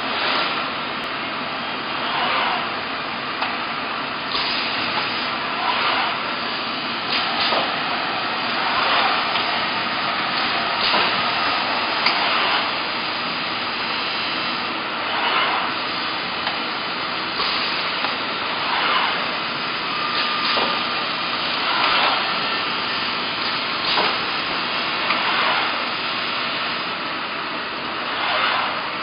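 Hexagon HG-802F high-frequency PVC welding press at work: a steady mechanical noise with a short burst of noise repeating about every one and a half to two seconds.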